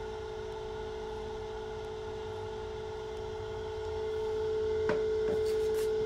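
Small egg incubator running with a steady, pure humming tone that grows a little louder about four seconds in. Two light clicks come near the end.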